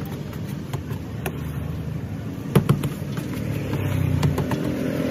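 A motor vehicle engine running steadily, its hum swelling slightly near the end, with a few sharp clicks over it, the loudest two in quick succession a little after halfway.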